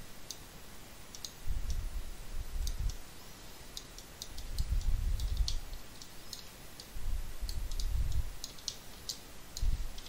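Computer mouse and keyboard clicks, irregular, about a couple a second. Several stretches of low, dull rumble run between them.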